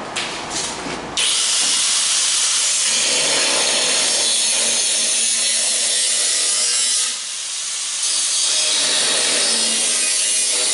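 Angle grinder cutting into the sheet steel of a pickup cab: a few short touches in the first second, then a steady, harsh, high-pitched cut that eases briefly about seven seconds in.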